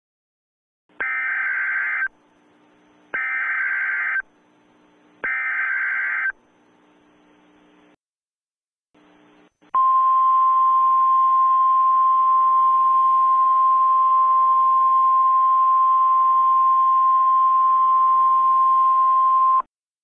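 Emergency Alert System alert sequence: three one-second bursts of warbling SAME header data, evenly spaced, then after a short pause a steady single-pitch attention tone lasting about ten seconds that cuts off abruptly. A faint hiss runs under the tones.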